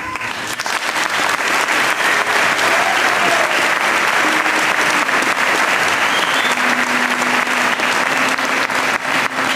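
An audience applauding. The clapping starts suddenly and stays steady and dense.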